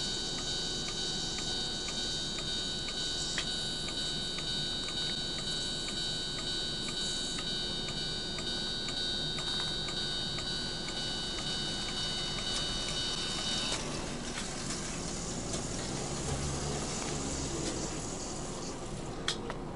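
O-gauge model railroad crossing signal sounding its warning bell: a steady ringing tone with a regular strike about twice a second, which cuts off suddenly about 14 seconds in. A softer, even noise follows, with a single sharp click near the end.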